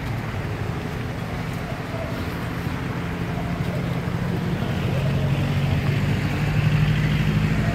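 Road traffic: a steady rushing wash with a low engine hum from passing vehicles that grows louder over the last few seconds.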